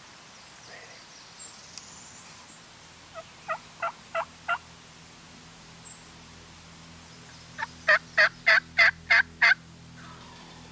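Turkey yelps in two runs: about five softer notes, then about seven louder ones, roughly three notes a second.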